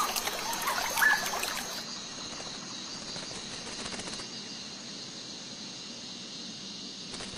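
A steady hiss of outdoor background noise with a couple of short bird chirps in the first second or so, the loudest about a second in.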